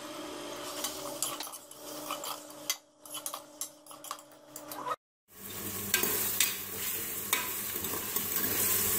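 Metal spoon stirring and scraping sliced onions and ginger-garlic paste around a pressure cooker, with the oil sizzling. The sound cuts out for a moment about five seconds in, and after that the sizzle is louder and steadier.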